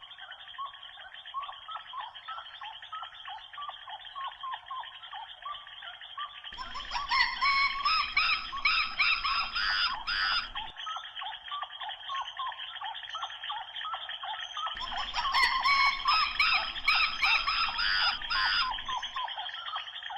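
Dense, steady chorus of small chirping animal calls, with two louder stretches of sharper, higher calls starting about six and fifteen seconds in, each lasting about four seconds.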